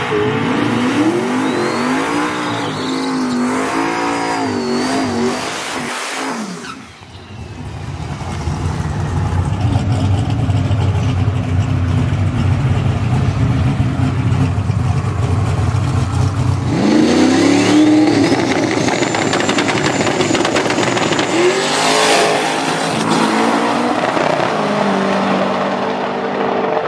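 Drag-race car engines blipping up and down for the first several seconds, then settling into a steady low rumble. Near the middle the revs rise sharply, and they peak again a few seconds later.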